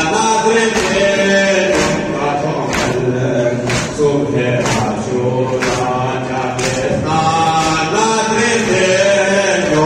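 A group of voices singing a chant in unison over a steady beat, one sharp percussive stroke about every second.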